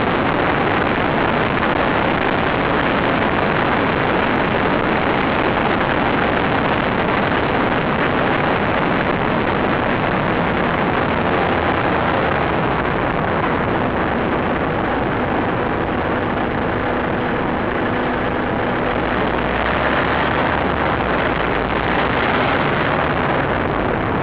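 Steady, loud, unbroken road and wind noise of a moving vehicle, with a faint steady hum coming in about two-thirds of the way through.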